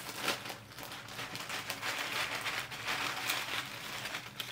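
Packaging crinkling and rustling in the hands, an uneven papery-plastic crackle.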